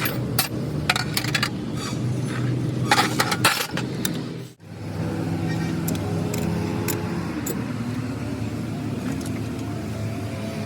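A motor running steadily, with sharp metallic clinks and taps over it during the first few seconds; the sound breaks off briefly about four and a half seconds in, then the steady running resumes.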